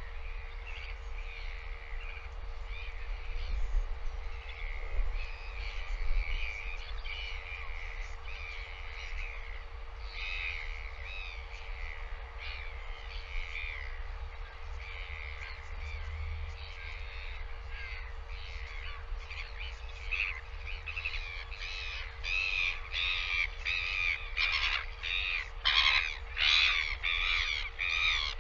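Birds calling over and over in short, arched, rasping calls, thickening into a fast, louder run in the last third. A low wind rumble and a faint steady hum sit underneath.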